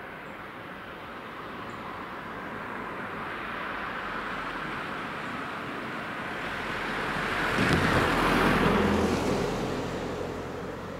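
A car drives over the level crossing and past close by. Its tyre and engine noise rises to a peak about eight seconds in, with a low rumble as it passes, then fades away.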